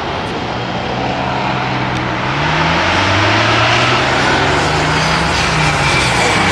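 ProCharger-supercharged car engine running hard under acceleration, with the supercharger's high whine over the exhaust. Its pitch climbs about two seconds in, holds, then drops back near the end.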